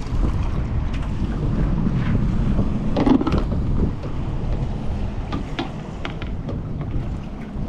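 Wind buffeting the microphone aboard a small fishing boat at sea, a steady low rumble with water washing around the hull. A heavier bump comes about three seconds in, and a few light knocks follow near the end.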